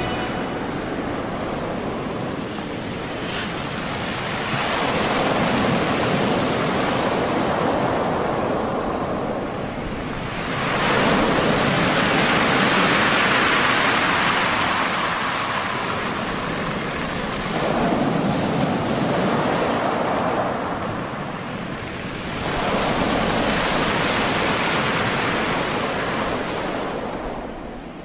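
Heavy storm surf: big waves breaking and rushing, the sound swelling and easing in long surges several seconds apart, with wind.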